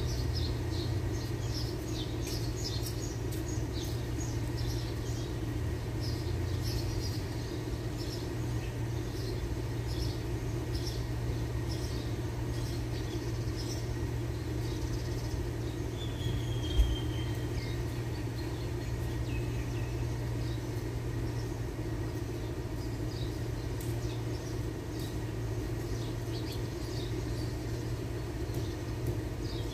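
Steady low machine hum, with birds chirping, mostly in the first half. A single sharp knock comes about 17 seconds in.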